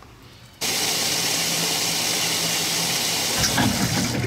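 Water rushing into the tub of a top-loading washing machine as it fills: a steady, loud hiss that starts abruptly about half a second in. A low, uneven rumble joins it near the end.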